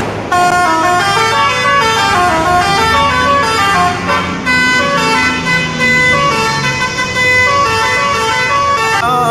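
A bus's telolet horn, the Indonesian multi-trumpet musical air horn, sounding a melody of chord-like horn notes that step up and down every fraction of a second, starting about a third of a second in.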